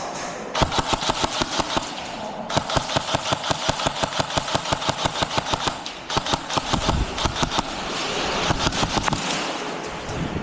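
Airsoft electric guns firing full-auto in long bursts: a rapid, even rattle of shots starting about half a second in, a short break near 2 s, then a long stream that thins out and turns fainter after about 6 s.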